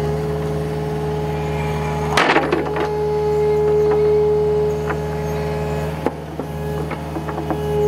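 Excavator engine running steadily with a strong, steady whine while the bucket digs into the hole. About two seconds in comes a short burst of loud knocking and scraping as the bucket works the dirt, with a few lighter knocks near the end.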